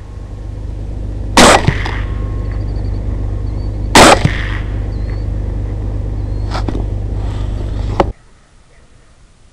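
Two loud rifle shots from an LWRCi Six8 Razorback chambered in 6.8 SPC, about two and a half seconds apart, over a steady low rumble. Two fainter cracks follow, and the rumble cuts off suddenly about eight seconds in.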